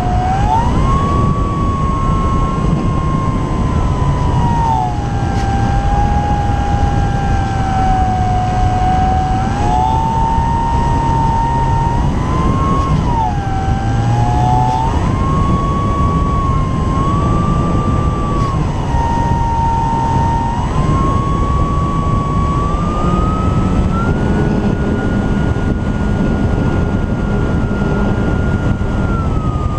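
Electric motor and propeller of an Apprentice S 15e RC trainer plane whining in flight. The pitch glides up and down several times and holds higher during the last few seconds before dropping slightly. Steady wind rush over the camera strapped beneath the plane sits underneath it.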